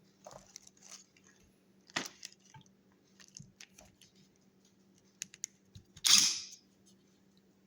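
Handling noises from a cordless impact wrench with its motor not running: scattered light clicks and taps, one sharper click about two seconds in, a quick run of small clicks around five seconds, and a short rustling burst, the loudest sound, about six seconds in.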